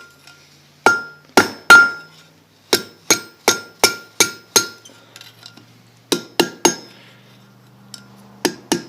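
Blacksmith's hammer striking hot quarter-inch round steel on an anvil, about fifteen blows in short bursts with brief pauses between, each blow leaving a bright ring from the anvil. The end of the bar is being curled over while it still holds forging heat.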